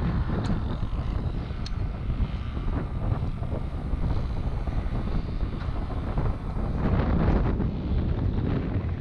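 Strong wind buffeting the microphone in gusts, a heavy low rumble that swells and eases.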